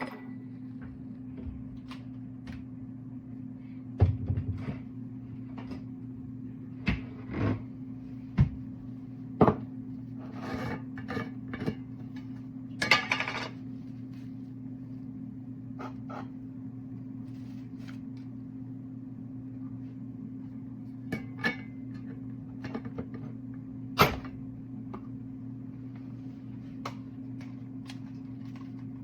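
Electric kettle heating water, giving a steady low hum. Scattered sharp clicks and knocks, about a dozen of them, sit over the hum; the loudest come a few seconds in and again later on.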